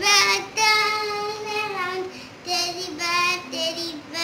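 A young child singing alone in short phrases, with some long held notes.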